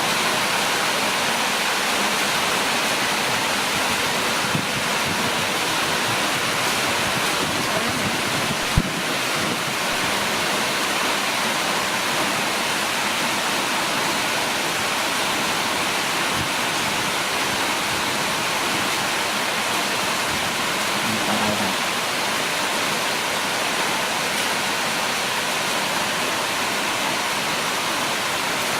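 Heavy rain falling steadily, a dense even hiss, with one sharp tap about nine seconds in.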